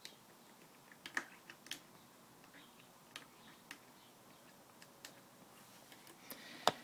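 Faint, irregular light clicks and taps, with one sharper click near the end.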